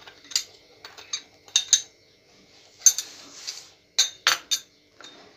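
Metal spoon clinking and tapping against a small glass bowl and the pressure cooker as salt is spooned onto raw mutton: a string of short, sharp, irregular clinks.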